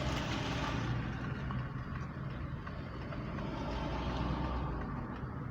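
Motor vehicle running: a steady engine rumble with road or traffic noise.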